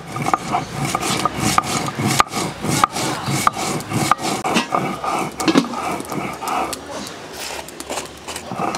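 Stone roller grinding wet cumin seeds on a flat grinding stone (shil-nora): stone rubbing and rasping on stone in repeated back-and-forth strokes with sharp clicks.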